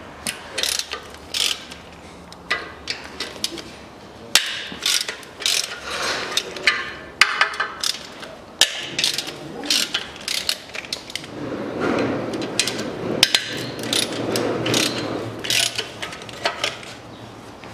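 Hand socket ratchet clicking in runs as it unscrews the exhaust manifold nuts on a Toyota engine. The runs of quick clicks have short pauses between strokes.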